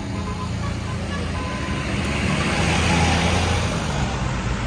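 Tour bus diesel engine running close by, growing louder to a peak about three seconds in.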